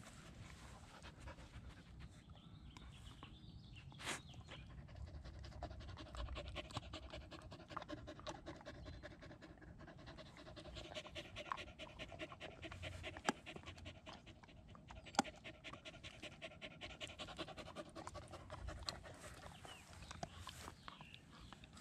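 Dog panting rapidly and steadily, broken by a few sharp clicks.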